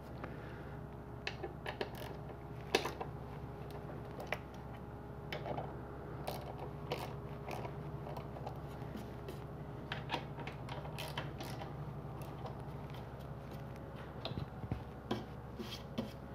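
Hand ratchet tightening M6 mounting screws down into a metal rack plate: scattered metallic clicks and ticks of the ratchet and of the tool knocking the plate, the sharpest about three seconds in, over a steady low hum.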